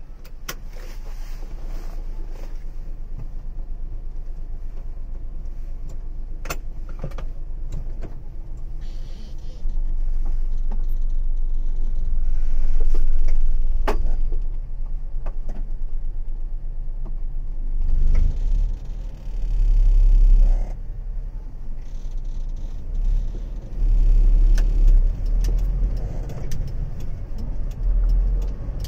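Car running with a steady low rumble that grows louder after about ten seconds, swelling and easing several times as it moves off. A few sharp clicks are heard over it.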